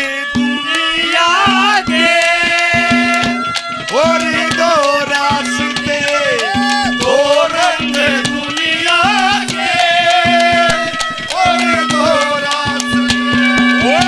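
Haryanvi ragni instrumental interlude: a melody that bends and glides in pitch over a steady low drone, with quick hand-drum strokes.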